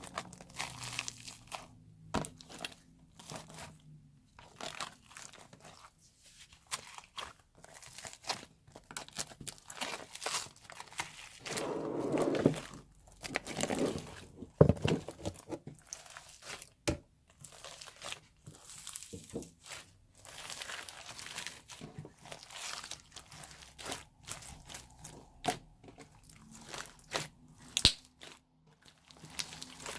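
Sticky slime being kneaded and mixed with foam bricks and play-dough: a run of irregular sticky crackles and pops, with a louder spell of squishing about twelve to fifteen seconds in.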